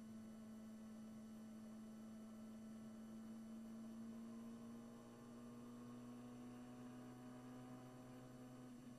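Brabham BT21's one-litre four-cylinder Formula 3 engine pulling hard under acceleration, heard faint and muffled from the onboard camera as one steady note that climbs slowly in pitch as the car gathers speed.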